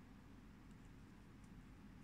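Near silence: room tone with a faint low hum and a few very faint ticks.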